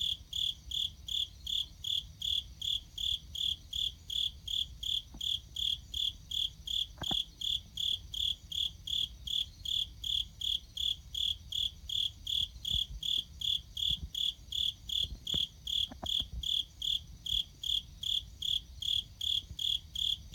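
A cricket chirping steadily in an even rhythm, about two and a half short high-pitched chirps a second.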